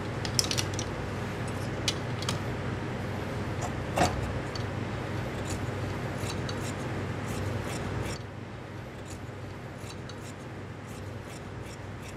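Large tailor's shears cutting through suit-trouser fabric, the blades giving a series of sharp clicks, with one louder click about four seconds in; the snipping thins out and grows quieter for the last few seconds.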